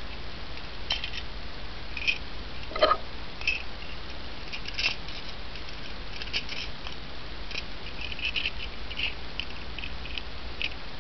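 Small clicks and scrapes from metal pistol-magazine parts being handled, scattered irregularly, with one louder knock about three seconds in, over a steady low hum.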